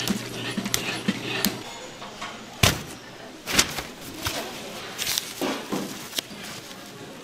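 Donuts frying in hot oil in a cast-iron cauldron, with a steady crackle over a low hum. After about two seconds come a series of sharp knocks and rustles, about seven in all, as gloved hands handle the fried donuts on paper.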